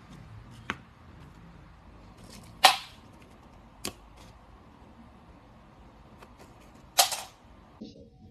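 Four sharp clatters of small plastic objects, a lighter among them, dropping onto a wooden floor. The loudest come about two and a half seconds in and about seven seconds in, over a faint low hum.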